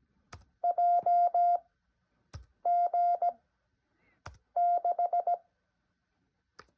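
Morse code (CW) practice tone, a steady pitch of about 700 Hz keyed into dits and dahs at about 17 words per minute, which sounds almost too slow. Three characters are sent in short groups about two seconds apart, each just after a sharp click.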